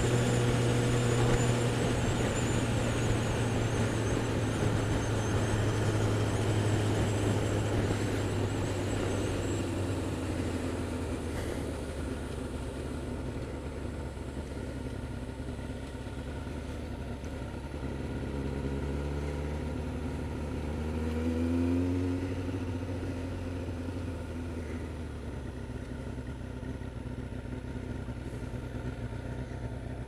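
Sport motorcycle engine heard from on board the bike while riding. The engine note sinks slowly as the bike slows, rises sharply about two-thirds of the way through as it speeds up, then drops back and runs steadily.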